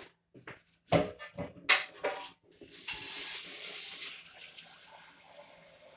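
A few sharp clattering knocks, then a kitchen tap runs hard into the sink for over a second. It carries on running more softly after that.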